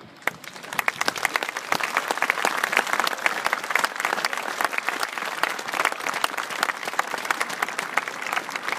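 Large crowd applauding: dense hand-clapping that builds over the first second or two and then holds steady.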